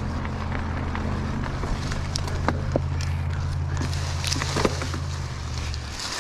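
A vehicle engine idling steadily as a low, even hum that stops near the end, with scattered light clicks over it.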